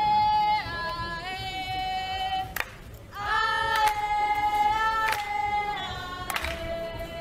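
A group of voices singing in unison, holding long notes and sliding in pitch from one note to the next, with a short sharp knock about two and a half seconds in.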